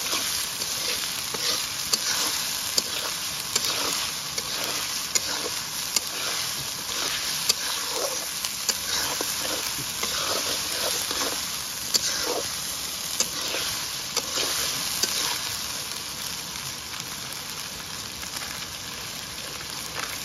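A potato and meat curry sizzling in a steel kadai while a metal spatula stirs and scrapes it, with sharp clinks of the spatula against the pan every second or so, thinning out over the last few seconds.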